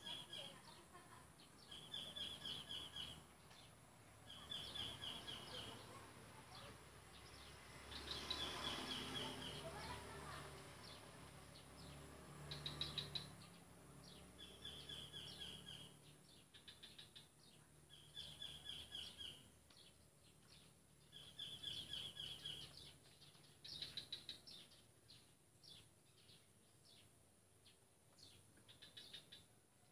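A bird singing the same short, rapid trilled phrase over and over, about every two to three seconds, faint. A low rumble swells up about eight seconds in and fades out over several seconds.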